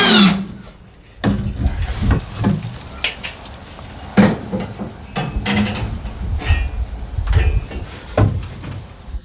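Irregular knocks, clicks and scuffs of hands and tools at work while fitting self-tapping screws, over a steady low rumble. A brief pitched whine dies away right at the start.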